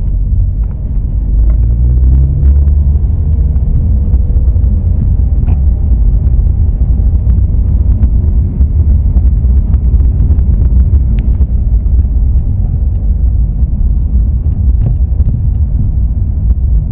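Porsche 997 Carrera on the move: a heavy, steady low rumble with scattered, irregular sharp knocks from the rear shock absorber, which the owner puts down to its worn rubber bushing.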